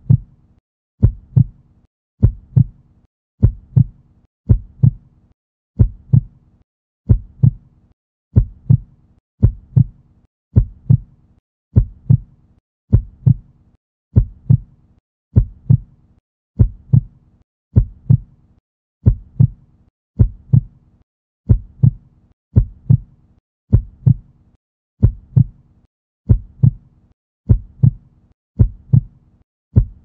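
Heartbeat sound effect: steady paired lub-dub thumps, a little under one beat a second, low and dull, with quiet between beats.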